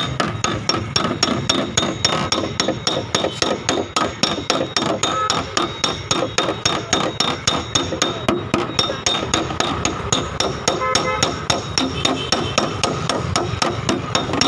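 Rapid, even hammer taps on the Hyundai i20's sheet-metal quarter panel, about five a second: dry (paintless) dent repair, tapping the dent back into shape.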